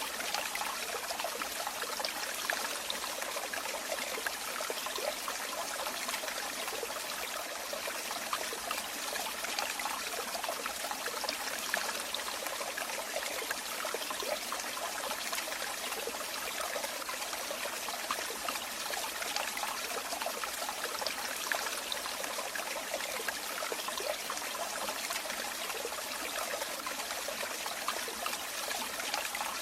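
Water running steadily, trickling and splashing with a fine bubbling patter.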